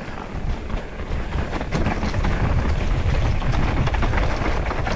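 Trek Slash mountain bike riding down a dirt trail: tyres rolling over the ground with clicks and rattles from the bike, under a heavy rumble of wind on the microphone. It gets louder about two seconds in as the bike picks up speed.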